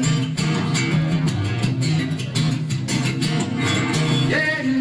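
Acoustic guitar strummed in a steady rhythm during an instrumental break between sung lines of a song.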